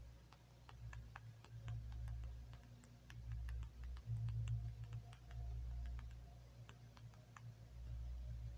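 Typing on a smartphone's on-screen keyboard: faint, irregular tapping clicks, two or three a second, over a low rumble that swells and fades.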